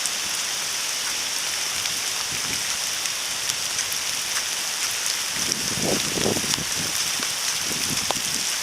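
Steady rain falling, a constant hiss with scattered drops ticking. Partway through there is a brief lower swell of sound.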